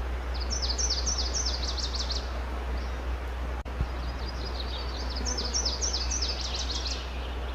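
Nashville warbler singing twice. Each song is a rapid run of two-note "see-ta" phrases leading straight into a short, fast trill, over a steady low hum.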